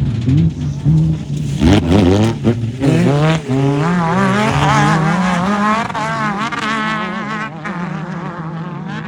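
Off-road race vehicle's engine driving past at speed. The revs climb sharply about a second and a half in, then rise and fall rapidly over and over through the middle, and the engine fades as it moves away near the end.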